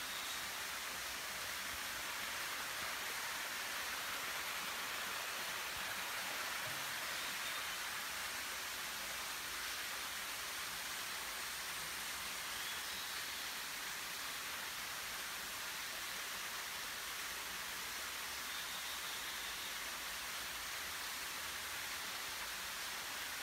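Steady, even rushing hiss of falling water from the Jataki waterfall, a thin, straight fall with little water.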